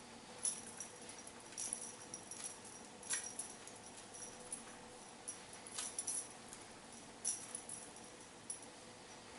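Light metallic jingling and clinking in short irregular bursts, several times over a few seconds, from small loose metal pieces shaken together.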